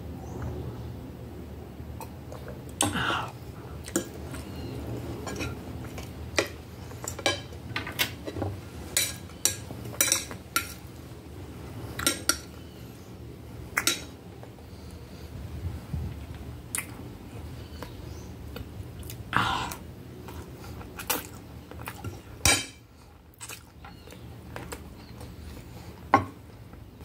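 Metal fork and knife clinking and scraping against a plate as leftover spaghetti is gathered up, in scattered sharp knocks with irregular gaps.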